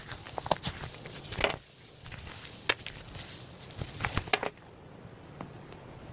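Slime being squeezed and worked by hand, making irregular sharp clicks and crackles, with a cluster about four seconds in before it goes quieter.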